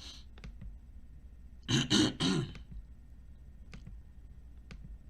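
A man clears his throat in one short burst of three quick pushes about two seconds in, with a few faint clicks before and after.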